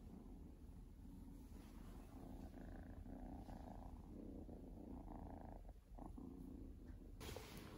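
Munchkin kitten purring steadily and softly, with a brief rustle near the end.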